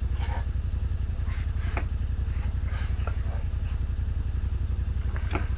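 An engine idling steadily, with scattered light knocks and rustles over it.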